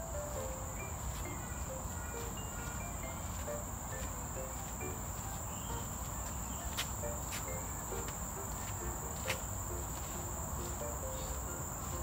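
A steady high-pitched insect drone, like crickets, runs under soft background music of short scattered notes. Two sharp clicks come in the second half.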